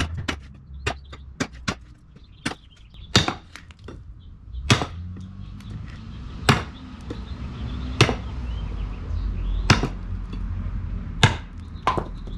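Dark Timber Knives Devil's Horn, a large camp knife, chopping into wood: lighter, quicker strikes at first, then heavier chops about every one and a half seconds.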